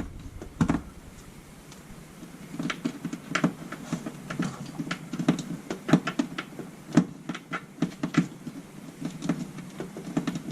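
Hands working butyl tape around the wiring hole of a refrigerator light: a single knock about a second in, then a run of small irregular clicks, taps and rustles.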